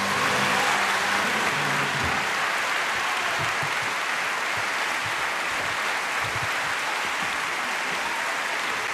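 Audience applauding steadily right after a song ends.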